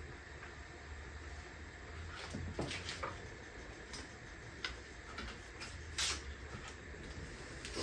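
Quiet eating sounds: a few soft clicks and short rustles from people chewing and handling soft tortilla tacos over a plate, the sharpest about six seconds in, over a steady low hum.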